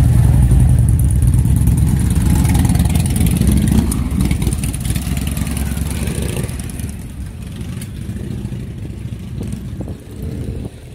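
Motorcycle engines riding past close by at walking pace. A large touring cruiser's deep rumble is loudest in the first four seconds, then fades as it moves on, leaving quieter engine noise from other passing bikes.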